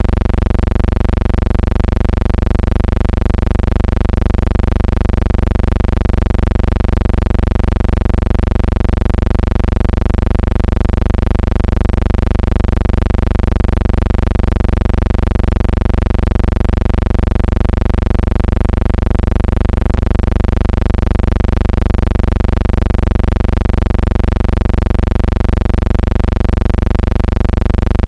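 Loud, steady, unchanging buzzing hum with a heavy bass. It is noise on the soundtrack of a silent film transfer, not a sound from the pictured scene.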